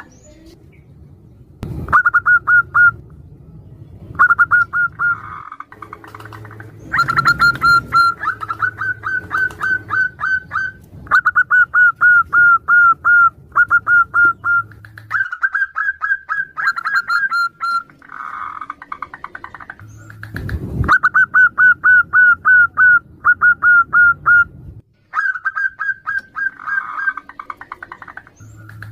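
Zebra doves (perkutut) cooing back and forth: phrase after phrase of quick, clipped whistled notes, broken by a few burry, rolling notes.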